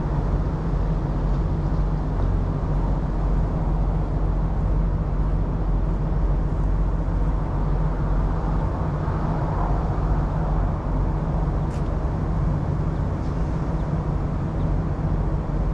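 Semi truck's diesel engine idling steadily, a low even hum.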